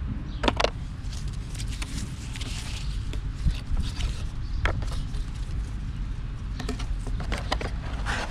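Handling noise: scattered sharp clicks and light scrapes, a cluster of them in the second half, over a steady low rumble.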